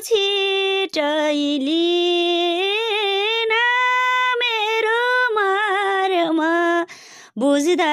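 A woman singing a Nepali folk dohori line unaccompanied, in a high voice with long held, bending notes. She breaks off briefly about seven seconds in.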